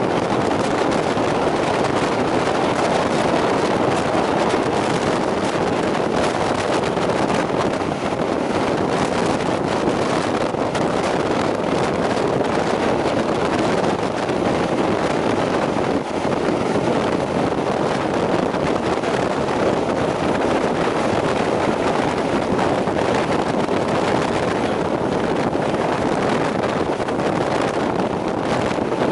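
Steam-hauled train running at speed, heard from an open carriage window: a steady rush of wind over the microphone mixed with the running noise of the train on the rails.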